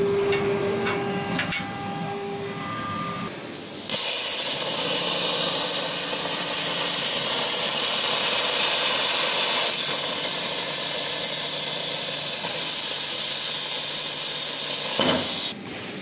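Blue Elephant ELE1530 CNC plasma cutter's torch cutting steel plate: the plasma arc and air jet make a loud, steady hiss that starts about four seconds in and cuts off sharply near the end. Before it there is a quieter steady hum.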